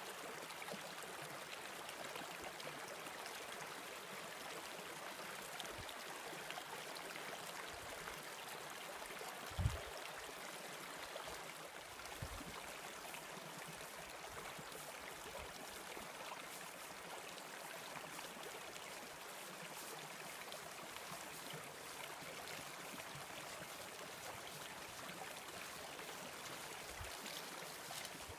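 Mountain stream running steadily over stones between snow banks, a continuous even rush of water. A brief low thump comes about ten seconds in.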